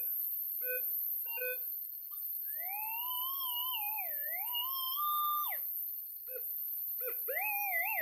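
Metal detector's audio tone answering a buried metal target as the coil passes over a dug hole. First short pitched beeps about every 0.7 s, then a long tone sliding up and down in pitch for about three seconds, and near the end a fast-warbling tone. The target is still in the hole and deep down.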